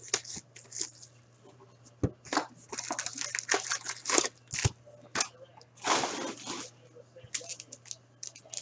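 Foil wrappers and packaging of 2016-17 Upper Deck Ice hockey card packs crinkling and crackling as they are handled and opened. There are two dull knocks, and a longer rip about six seconds in.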